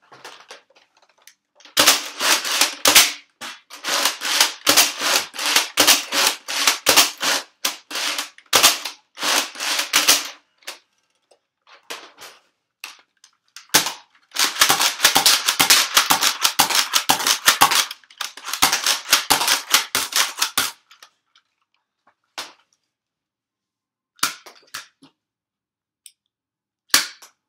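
Nerf foam-dart blasters being fired as fast as possible, giving rapid sharp clicking shots. There are two long runs of shots in quick succession, then a few single shots near the end.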